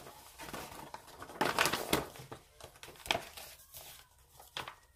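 Soft rustling and crinkling handling noise in a few short spells, the longest about a second and a half in, with a sharper one a little after three seconds.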